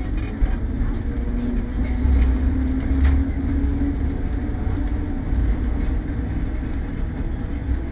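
Inside a 1924 Kalmar Verkstad A12 tram running along the rails: a continuous low rumble with a steady hum, and a sharp click about three seconds in.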